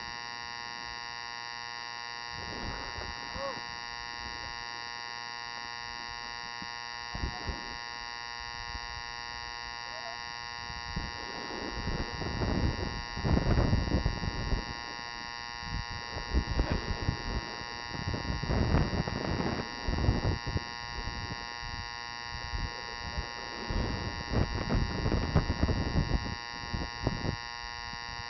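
A steady electrical hum made of many fixed high tones, with irregular rushes of noise from about eleven seconds in: snowboards sliding and scraping on packed snow, and wind on the microphone while riding downhill.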